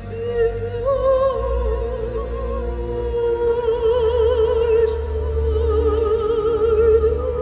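Show music: a slow melody of long held notes with wide vibrato, in an operatic style, over a steady low drone.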